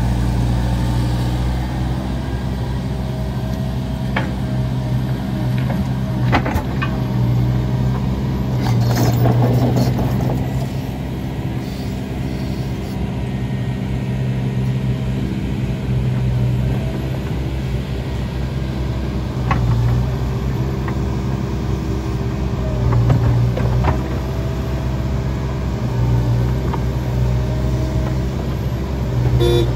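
The diesel engines of a Liebherr R916 crawler excavator and a Komatsu HM300 articulated dump truck running steadily, with the excavator's hydraulics working as it swings and dumps loads. A few sharp clunks, and about a third of the way in a rush of dirt and stones dropping into the truck's steel dump body.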